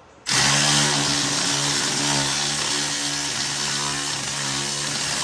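A power tool running steadily for about five seconds, starting and stopping abruptly, as it works a bolt on a Jeep JL's driveshaft.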